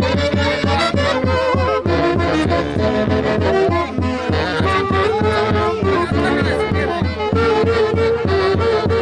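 Folk dance music with a quick, steady beat under a sustained melody.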